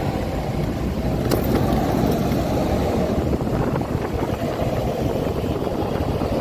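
Riding noise on a moving motorcycle: wind rumbling steadily over a chest-mounted phone's built-in microphone, mixed with engine and traffic sound. A short click a little over a second in.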